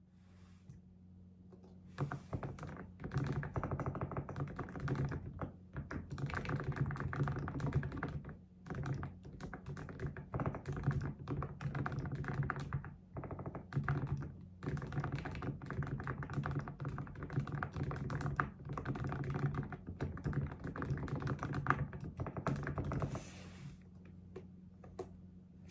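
Fast typing on a computer keyboard: quick runs of keystrokes with short pauses, starting about two seconds in and stopping near the end.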